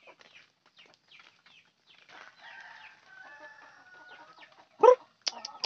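A flock of free-range village chickens clucking and calling as they feed, with short chirps early on, a drawn-out layered call in the middle, and one loud squawk near the end.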